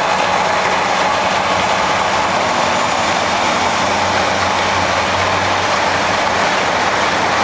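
XCMG XE210 hydraulic excavator's diesel engine running steadily, a loud, even mechanical drone with a low hum.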